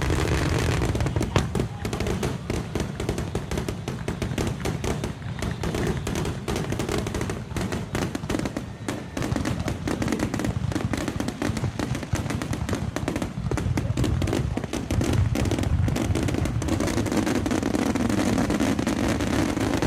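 Fireworks going off in a dense, continuous barrage of rapid bangs and crackles over a low rumble.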